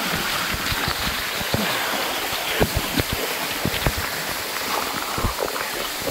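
Small waterfall pouring into a rock pool, a steady rush, with irregular close splashing and sloshing as a person wades and swims through the water.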